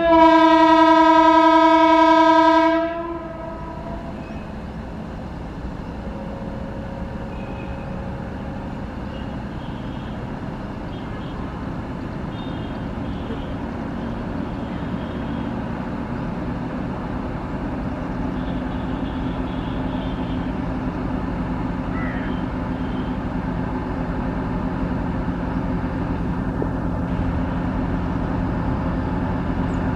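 Indian Railways locomotive horn sounding one long steady note for about three seconds, then a train running on the track, its rumble and low engine drone growing gradually louder as it approaches.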